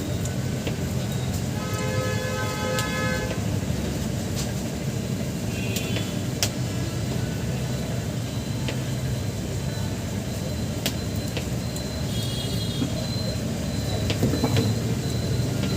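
Steady low rumble of a running vehicle, with a horn sounding for about a second and a half about two seconds in, and a shorter, higher horn-like tone about twelve seconds in.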